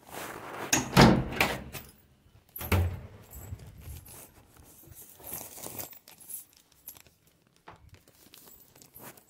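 Keys jangling and metal clattering against a door and its latch while a door is shut and locked, with a cloth bag rustling. The clatters are loudest about a second in and again near three seconds, then thin out into lighter clicks.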